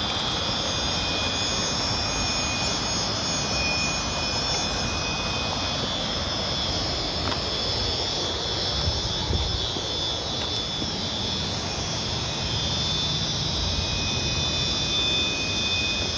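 Steady rushing roar of a flooded river, with a high steady whine above it that drops out about a third of the way through and comes back near the end.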